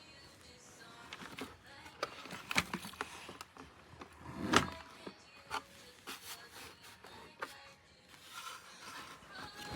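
Irregular clicks and knocks, the loudest a thump about four and a half seconds in.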